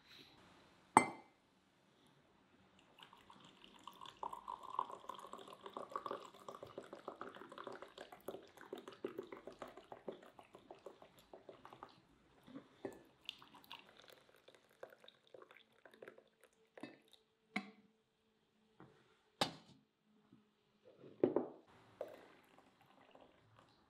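Tea poured from a teapot into a glass mug, a splashing stream lasting several seconds. Later come a few separate clinks and knocks of glass and the samovar's metal tap, and a thin stream of hot water running from the samovar tap into a glass.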